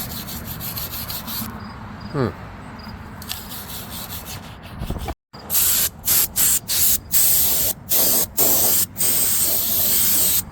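Hand brush scrubbing rust and dust off a brake rotor. After a brief break, a can of compressed air sprays in about seven short hissing blasts that are louder than the scrubbing, blowing the dust off the rotor.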